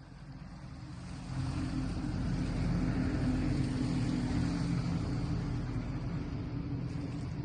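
An engine running with a low, fast throb, growing louder over the first two seconds and then holding steady.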